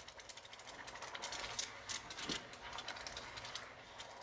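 Sauce sizzling faintly in a stainless steel skillet, a light irregular crackle of many small pops with a few louder ones about halfway through.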